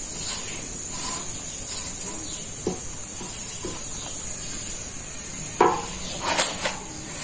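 A thin yufka flatbread sheet being handled with a wooden stick on a gas-heated sac griddle. A few soft taps and rustles come first, then a cluster of sharper knocks and dry rustling starts about five and a half seconds in, as the sheet is lifted and turned over.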